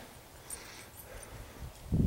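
Quiet outdoor background between spoken phrases: a faint hiss with a few soft ticks. A low rumble comes in near the end.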